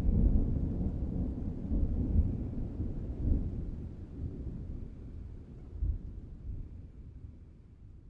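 Thunder rumbling low and deep, swelling a few times before slowly dying away near the end.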